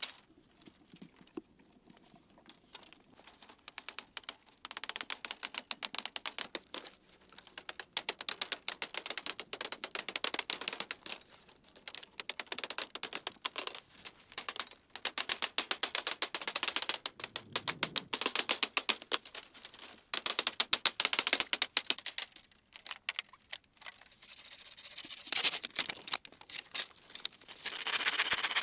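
Dry split-bamboo slats clattering and clicking against one another in rapid bursts as they are laid and woven into a bamboo mat floor.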